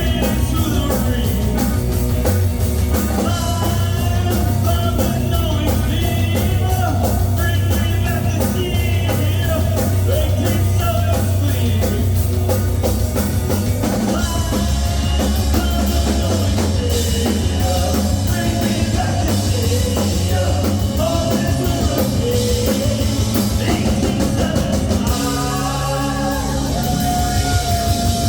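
Rock music with singing over a drum kit, playing steadily throughout.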